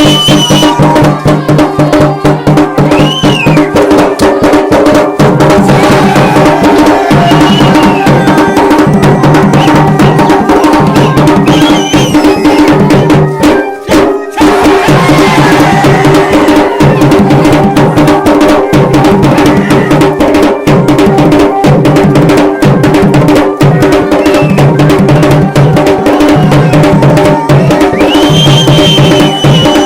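Garhwali dhol and damau drums playing a fast, dense rhythm, with a brief break about fourteen seconds in.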